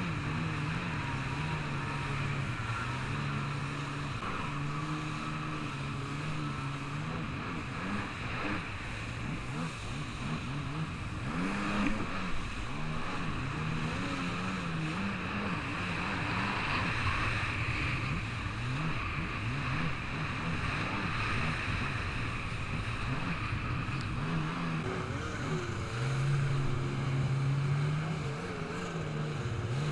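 Jet ski engine running at changing throttle, its pitch stepping up and down and easing off for stretches, over a steady hiss of water and wind.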